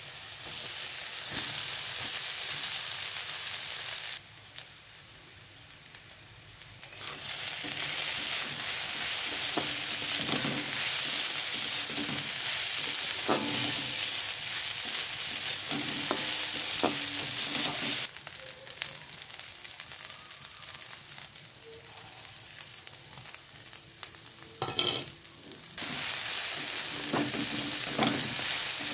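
Flattened rice and vegetables sizzling in hot oil in a wide pan while a spatula stirs and scrapes through them. The sizzle drops away for a few seconds about four seconds in and again for several seconds from about eighteen seconds in.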